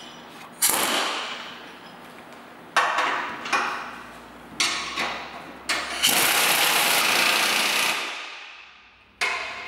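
Pneumatic air wrench run in short bursts, then one longer run of about two seconds, each dying away as the trigger is let go, as it snugs down the bolts holding a snow plow blade to its frame.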